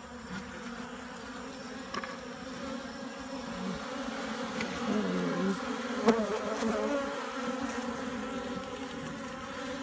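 Honeybees buzzing around an opened hive: a steady hum, with single bees passing close by and their pitch rising and falling in the middle. A light tap sounds about six seconds in.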